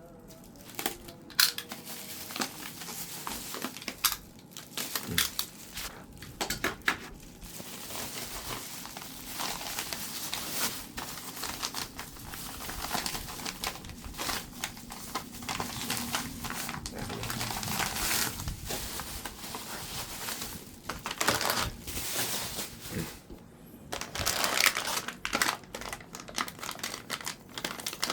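Plastic packaging crinkling and crackling as it is handled and unwrapped by hand, in a dense irregular run of rustles and small crackles.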